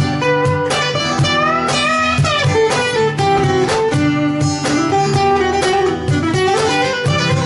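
Live acoustic band playing an instrumental passage: acoustic guitars over a steady beat on a Croaker Studio String Cajon, with some melody notes bending in pitch.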